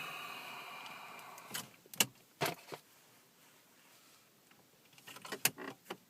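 Metal stereo removal keys and a car dash stereo being handled: a fading metallic ring, then a few sharp clicks and taps, and another cluster of clicks near the end.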